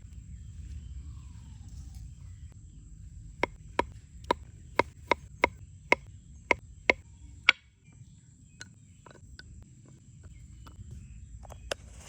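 A run of about ten sharp knocks, two or three a second, stopping about halfway through, then a few fainter scattered taps, over a steady low rumble.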